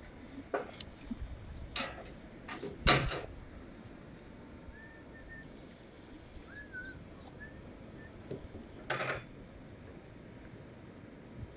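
A few sharp clicks and knocks over a low background hiss, the loudest about three seconds in and another near nine seconds, with a few faint short chirps in the middle.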